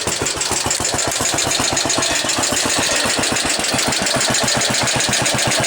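Briggs & Stratton 23CB 9 hp cast-iron single-cylinder engine running steadily with rapid, even firing pulses and a knocking noise, which the owner puts down to either a valve or the connecting rod.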